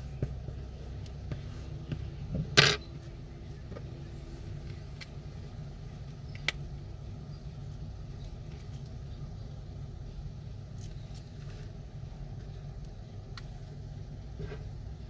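Small clicks and taps of tools and phone parts being handled, with one sharper knock about two and a half seconds in, over a steady low hum.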